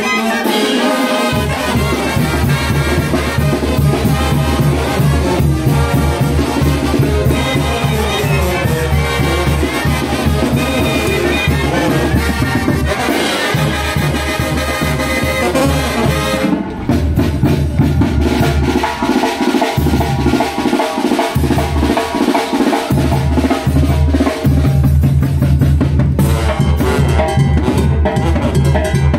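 Oaxacan brass band playing a lively tune: horns over a steady low bass line and drums. About halfway through the horns thin out, leaving the bass and drums to carry the beat.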